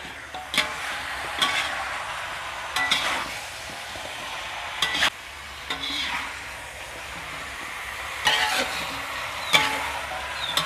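Metal spatula scraping and knocking against a wok while chicken pieces and chicken feet are stir-fried, a stroke every second or so, over a steady sizzle of frying.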